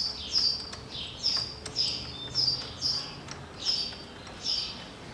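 A small bird chirping over and over, about two short high chirps a second, each dropping in pitch at the end.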